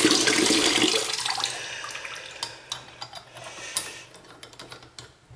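Water running from a bathroom faucet spout into the sink, fading out about a second and a half in as the tap is shut. Then a few faint metallic clicks and taps as the aerator at the spout tip is handled.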